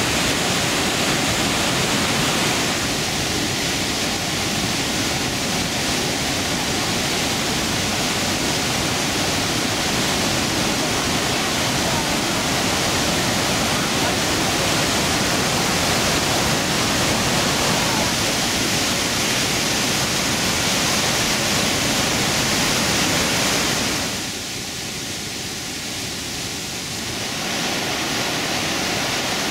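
Iguazú Falls: the steady roar of large waterfalls and fast water pouring over the brink. About 24 seconds in it turns quieter and duller for a few seconds, then comes back to full strength.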